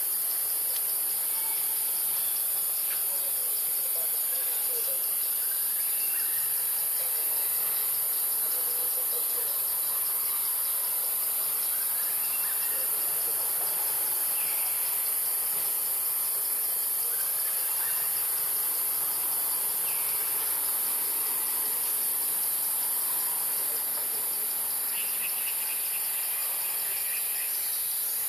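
Steady high-pitched buzzing chorus of insects, with faint short calls now and then and a longer call near the end.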